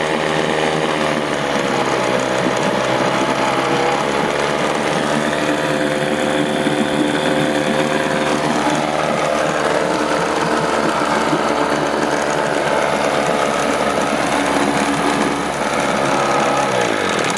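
Older Mercury 9.8 hp two-stroke outboard motor running steadily in a water test drum, its propeller churning the water, during a test run to check that the new water pump impeller is working. Near the end its pitch drops and the sound dies away.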